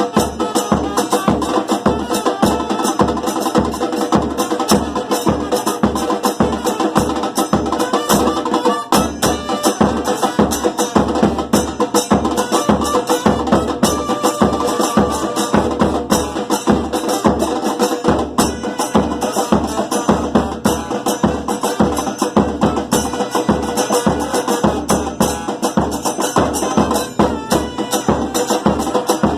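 Batucada percussion ensemble playing a steady groove: low bass-drum strokes about twice a second under dense sharp clicks and snare-like rattles.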